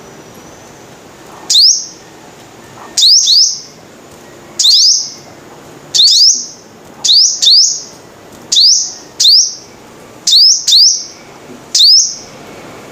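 Sunbird calling: short, high, upward-sweeping chips repeated every second or so, some in quick pairs.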